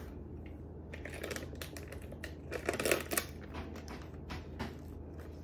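Faint handling noises as a plastic tub and a paper towel are picked up and moved: soft rustling and a few light clicks, loudest about a second in and again around three seconds in, over a steady low hum.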